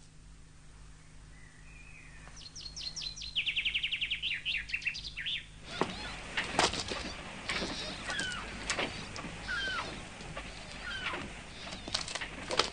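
Cartoon soundtrack effect of birds: a fast fluttering run of wingbeats with high chirps, then, from about six seconds in, a rushing noise with repeated short chirping calls and scattered clicks.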